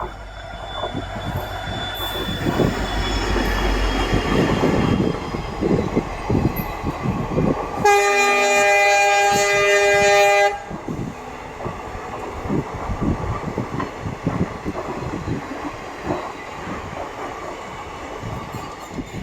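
Indian Railways train passing at speed, its wheels clattering rapidly over the rail joints. About eight seconds in, the horn sounds one steady chord for about two and a half seconds.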